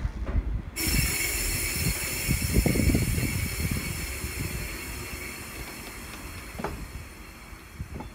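Freight work train of rail-carrying Chiki flat wagons rolling away: a low rumble with a few wheel clicks over rail joints, and a steady hiss that starts suddenly about a second in. The sound fades as the train moves off.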